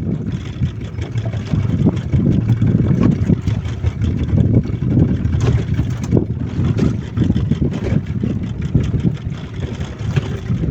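Motorboat engine running steadily while the boat trolls, with a low rumbling mix of engine and water noise.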